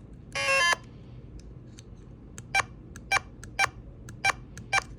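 Electronic game sound from a small speaker on a breadboard-built Dark Tower remake: a brief buzzy tone about half a second in. Then come five short, sharp clicks roughly half a second apart.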